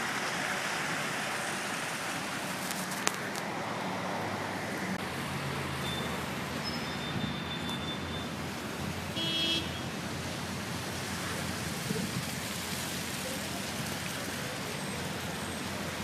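Steady rushing outdoor noise of a blizzard night, with a short, high tonal toot about nine seconds in and a faint click about three seconds in.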